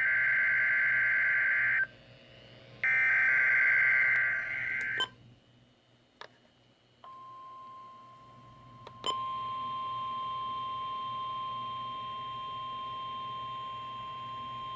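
NOAA Weather Radio weekly test heard through a receiver. Two bursts of warbling EAS/SAME digital header data, each about two seconds long, are followed after a short pause by the steady 1050 Hz warning alarm tone, which comes in about seven seconds in and gets louder about two seconds later.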